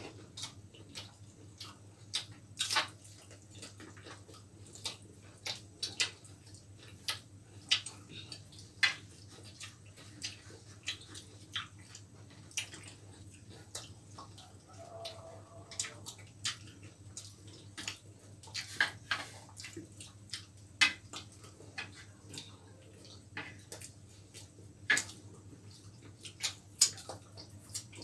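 Close-up wet eating sounds: chewing and lip smacks from eating roti and chilli chicken by hand, as irregular sharp clicks, over a steady low hum.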